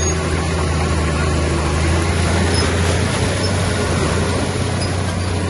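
Heavy diesel engine of earthmoving machinery running steadily, a low even hum with a dense mechanical noise over it.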